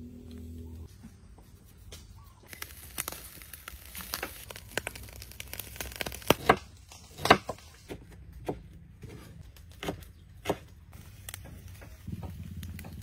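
Metal knife and spatula scraping and clicking against a wire grill rack while pieces of pig's face and ears are turned over charcoal. Irregular sharp clicks and scrapes, the loudest two about six and seven seconds in.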